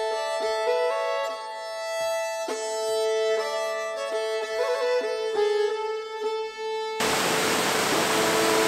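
Background instrumental music: a melody of held notes moving in steps. About seven seconds in, a steady rushing noise cuts in suddenly and covers most of it, leaving the tune faint underneath.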